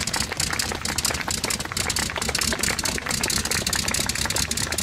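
Blackburn Monoplane's rotary engine running on the ground with its propeller turning: a fast, uneven crackle of exhaust pops over a low rumble.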